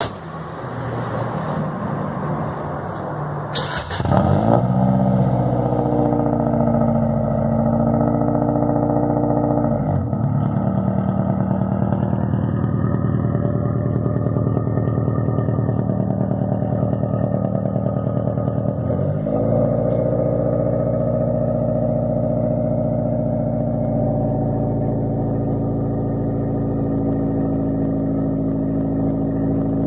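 1994 Acura Integra's four-cylinder engine running steadily through a DPT full exhaust with 4-1 headers and a high-flow cat. It gets suddenly louder about four seconds in, and the pitch dips briefly twice, around ten and nineteen seconds in.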